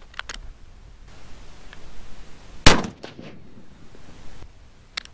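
A single .308 Winchester rifle shot from a rebarreled Mossberg 100ATR fitted with a 4-port muzzle brake, about two and a half seconds in: one sharp, loud crack with a short ringing tail. There are a few faint clicks just at the start and again near the end.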